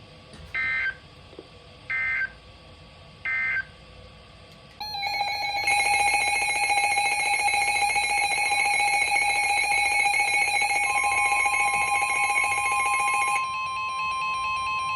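Three short warbling data bursts of a Specific Area Message Encoding (SAME) broadcast, spaced just over a second apart, marking the end of a weather alert message. About five seconds in, a loud buzzing electronic alert tone with several pitches sounds for about eight seconds. Near eleven seconds a steady single-pitch tone, the NOAA Weather Radio warning alarm tone, starts and runs on.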